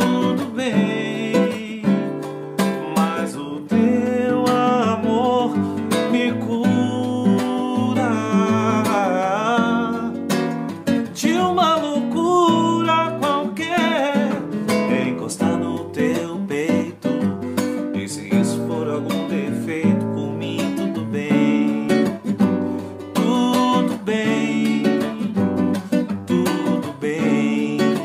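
Nylon-string classical guitar strummed and picked in a steady rhythm, with a man's voice singing along over it at times.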